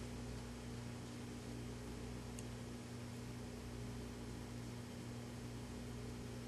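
Steady hiss with a low electrical hum and no distinct event, apart from one faint tick about two and a half seconds in.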